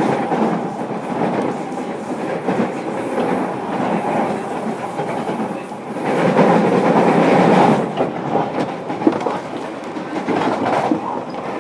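Running noise heard from inside a JR Kyushu 305 series electric train's motor car as it travels along the track, with wheel and rail noise throughout. It gets louder for about two seconds past the middle.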